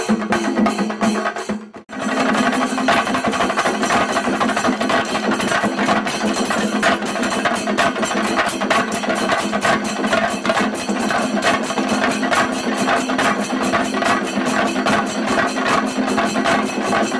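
Singarimelam drumming: a troupe of chenda drums beaten fast with sticks in a dense, driving rhythm. The sound breaks off for a moment about two seconds in, then carries on without a pause.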